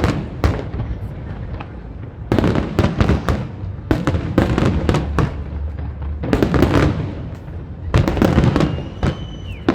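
Fireworks going off in repeated volleys of sharp bangs and crackling, a new cluster every second or two. A brief high whistle comes near the end.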